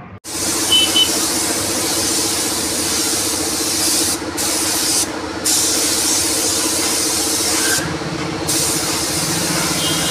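Compressed-air spray gun hissing as it sprays a lamination coat onto a scooter's painted body panels. The hiss stops briefly three times, about four, five and eight seconds in, as the trigger is let go, with a steady low hum underneath.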